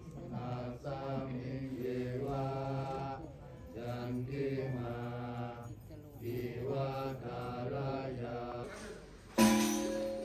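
Buddhist monks chanting the evening chant in unison: low male voices in long, steady-pitched phrases with short breaks between. About nine seconds in, the chanting stops and louder music starts suddenly.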